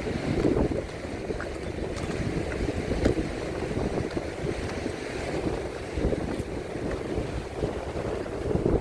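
Strong sandstorm wind gusting and buffeting the microphone, with sea surf beneath it.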